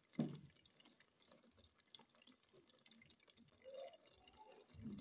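Faint popping and bubbling of a ridge gourd and minced-meat curry simmering in the pot, with a soft thump just after the start.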